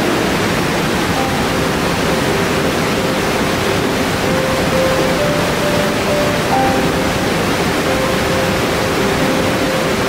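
Burney Falls, a waterfall pouring over a cliff into its plunge pool, making a steady, unbroken rushing noise. Soft sustained music notes sit faintly under it.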